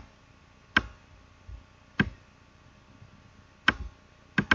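Computer mouse clicking: about five short, sharp clicks at uneven intervals, two of them in quick succession near the end.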